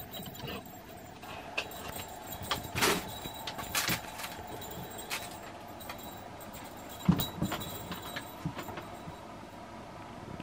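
A cat playing with a crinkly fabric cat tunnel: bursts of rustling from the tunnel and scattered knocks and thumps on a wooden floor, the loudest thump about seven seconds in, over a steady faint hum.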